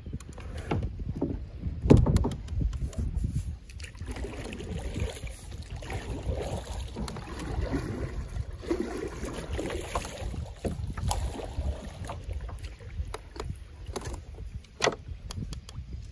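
Kayak being paddled: the paddle blades splash and swish through the water, with scattered sharp knocks, the loudest about two seconds in, over a steady low rumble.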